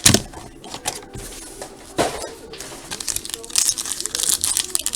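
Foil trading-card pack wrappers crinkling and tearing as packs are opened and cards handled: a sharp rip about two seconds in, then busier crinkling over the last second and a half.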